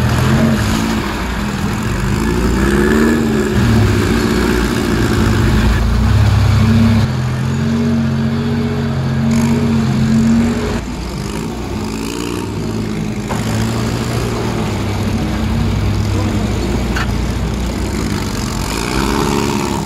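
Off-road vehicle engines running, revving up and down several times with a steadier stretch in between.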